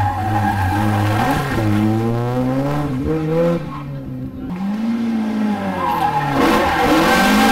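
Rally car engine revving hard as it approaches, the pitch climbing through the gears. It lifts off with a sharp drop about three and a half seconds in, goes quieter for about a second, then climbs again.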